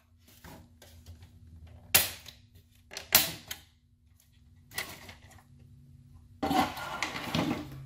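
Plastic retaining clips of a 2005 Ford Mustang instrument cluster lens snapping loose by hand: two sharp clicks about a second apart, two and three seconds in, and a softer one near five seconds. Near the end comes a longer plastic clatter and scrape as the lens comes away from the cluster.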